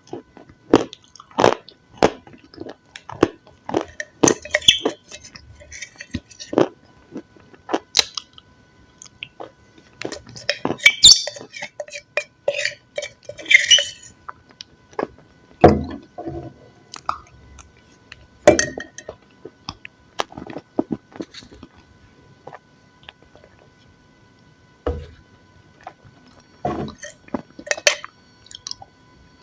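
Close-miked eating: steady chewing with sharp wet clicks and crackly crunching bites, and a couple of heavier knocks partway through.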